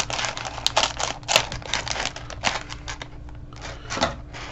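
Small plastic bag of model-kit parts being handled and opened: crinkling plastic and quick, sharp clicks of the plastic pieces, easing off for about a second near the middle.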